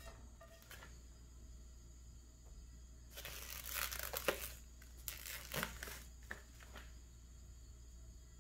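Crinkling and rustling, like packaging being handled, as raw sausages are taken out and laid into a cold cast-iron skillet, with a few soft knocks. It starts about three seconds in and lasts about four seconds. The pan is still cold, so nothing sizzles.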